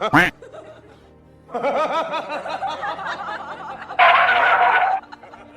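Music with giggling, snickering laughter over it, and a loud one-second blast of sound about four seconds in.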